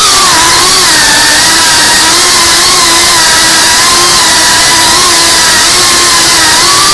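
FPV quadcopter's electric motors and propellers whining steadily at close range, as heard from the onboard camera, the pitch wavering a little with the throttle and rising briefly near the end.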